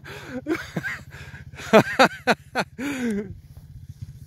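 An ATV engine running steadily at a distance as it slides in circles on snow-covered ice, with short wordless voice sounds over it during the first three seconds or so.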